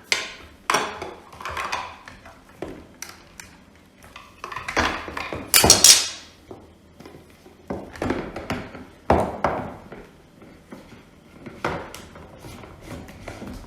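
Irregular clicks, knocks and scraping of hard plastic as reverse osmosis filter housings are handled and tightened with the housing wrench, with the loudest scrape about five and a half seconds in.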